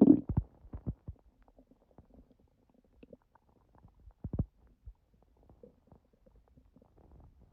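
Human stomach gurgling after a large udon meal: the tail of a louder rumble trails off at the start, then scattered short gurgles and pops with quiet gaps, the strongest about four seconds in. The uploader puts the noisy gut down to eating gluten again after a long break.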